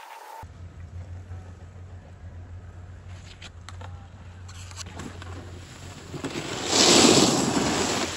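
Steady wind rumble on the microphone, then near the end a loud rush of scraped snow as a snowboard skids to a stop right by the phone.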